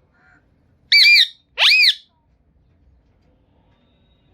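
Green Indian ringneck parakeet giving two loud, high calls about a second in. The first is short and wavering; the second swoops up steeply in pitch and falls back.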